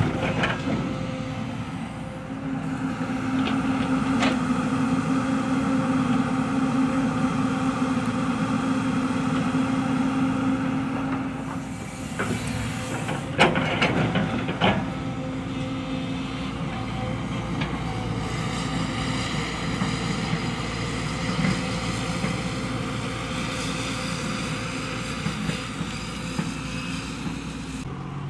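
JCB crawler excavator's diesel engine running steadily under load, with a short clatter about halfway through as the bucket tips soil and rocks into a steel dump-truck bed.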